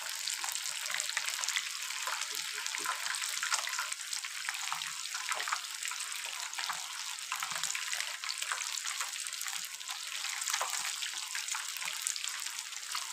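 Fish pieces coated in pickle (achar) masala deep-frying in hot ghee in a pan: a steady sizzling hiss with many small crackles and pops from the oil.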